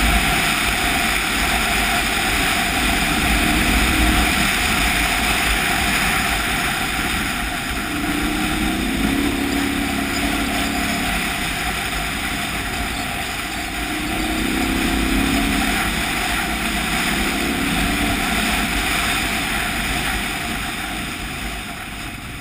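KTM 990 Adventure's V-twin engine running at riding speed on a dirt track, heard under heavy wind noise on the microphone. The engine note rises and eases a few times with the throttle.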